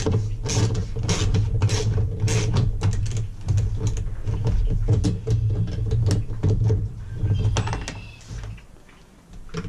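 Metal sockets and hand tools clinking and clicking, a few sharp clicks a second, over a steady low hum that fades briefly near the end.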